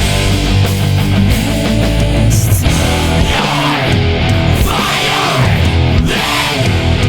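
Background heavy rock music with distorted electric guitars and a driving beat.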